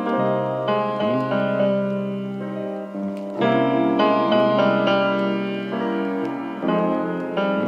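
Instrumental intro of a hip-hop beat: sustained piano chords over a low bass note, changing chord every second or so, with no drums.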